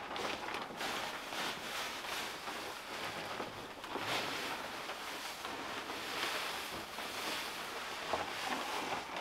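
Pine wood shavings pouring out of a bag onto a shavings-covered floor: a steady, rustling hiss that swells and eases a little as the bag is shaken.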